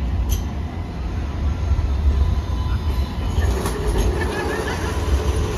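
Sydney light rail tram, an Alstom Citadis X05, passing close by: a steady low rumble of the wheels on the street track, with a few light clicks a little past halfway as the tram goes by.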